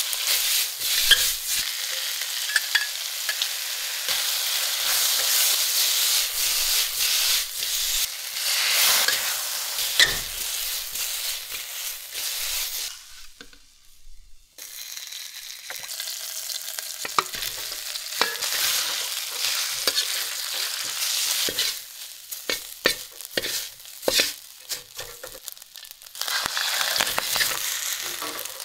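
Food sizzling in hot oil in a wok, stirred with a metal wok spatula that scrapes and clicks against the pan. The sizzle drops away for about a second and a half near the middle, then resumes with more distinct spatula clicks.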